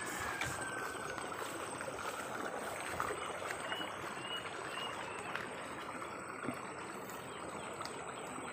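Fast water in a small ditch, rushing steadily as it pours out at an outlet in the stone wall.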